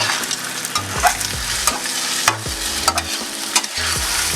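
Eggs sizzling in a hot frying pan while being stirred, with frequent sharp clicks and scrapes of the utensil against the pan over the steady frying hiss.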